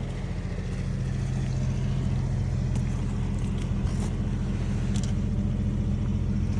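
An engine running steadily at idle, a low even hum with no change in speed.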